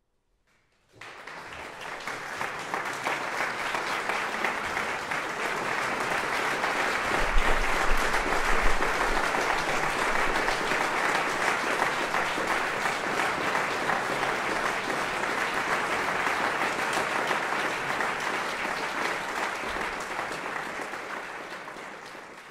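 Concert audience applauding, starting suddenly about a second in after a silence, holding steady as dense clapping and fading near the end.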